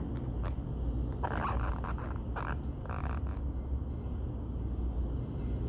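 Steady low rumble of a wood fire burning hard in a TMF Viziera clean-burning fireplace, with a few soft clicks and short rustling noises.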